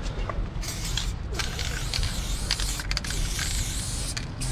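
Aerosol spray paint can hissing as a black tag is sprayed, in a few long bursts with brief breaks between strokes.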